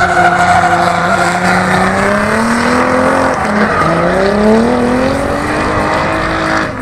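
Drift car's engine held at high revs through a slide, its pitch climbing steadily, dropping briefly about three and a half seconds in, then climbing again and levelling off, over the hiss of spinning, smoking tyres.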